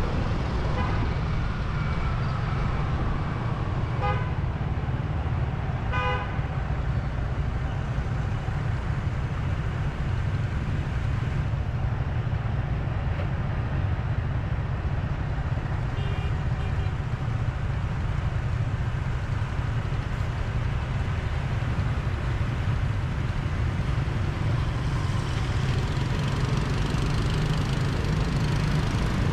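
Road traffic on a city street: a steady low rumble of vehicles, with short vehicle horn toots about four and six seconds in and a fainter one later.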